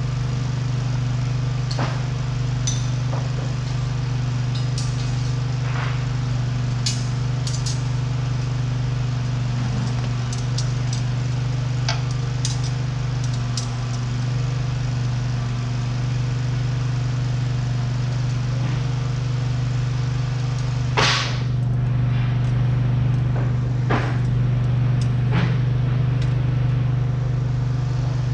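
A steady low machine hum, with scattered light metallic clicks and taps as steel hydraulic hard lines are handled and fitted. A louder clank comes about three quarters of the way through.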